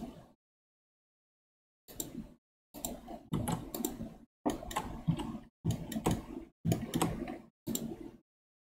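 Computer keyboard keys and mouse buttons clicking in about seven short bursts, starting about two seconds in, with complete silence between the bursts.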